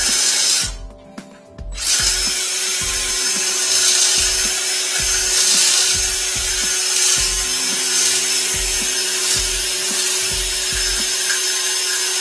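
Cordless drill spinning a flexible drain-cleaning shaft down a clogged toilet. It runs briefly, stops for about a second, then runs steadily from about two seconds in, with a steady motor whine and low knocks about twice a second.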